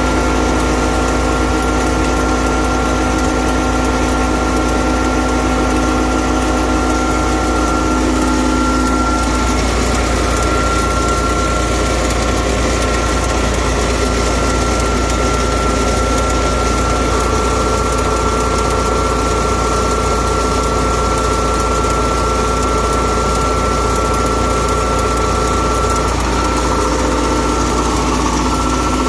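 Jet fuel truck's engine running at a steady speed with its fuel pump engaged, giving a constant hum and a steady high whine. The pitch of some of the tones shifts about 9 seconds in and again near 26 seconds.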